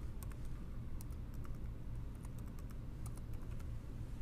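Typing on a computer keyboard: a quick, irregular run of key clicks as a string of numbers is entered, over a low steady hum.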